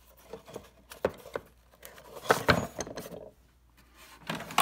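Irregular clicks and knocks of a micrometer case and tools being handled in a tool chest drawer, with a louder cluster of knocks about halfway through and another near the end.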